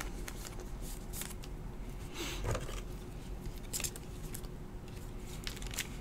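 Soft plastic rustling and scattered light clicks as a trading card is handled and slid into a plastic sleeve and rigid top loader, with one slightly fuller rustle a little past two seconds in.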